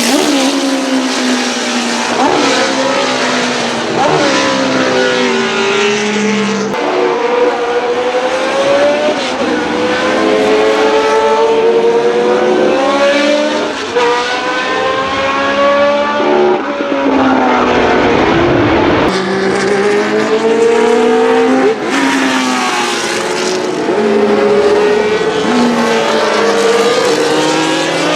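Arrows A4 Formula 1 car's 3.0-litre Cosworth DFV V8, loud, revving up through the gears with sharp drops at each upshift, then rising and falling as it lifts and accelerates again.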